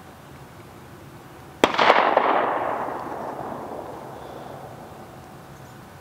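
A single rifle shot from a Barrett MRAD MK22 chambered in .300 Norma Magnum, about a second and a half in. The report echoes and dies away over about three seconds.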